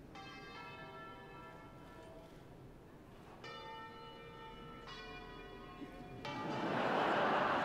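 Bells ringing in a few struck chords, then applause breaks out loudly about six seconds in.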